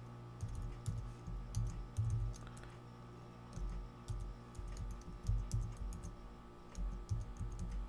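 Typing on a computer keyboard: irregular keystroke clicks in short runs with brief pauses, entering a web address, over a steady low hum.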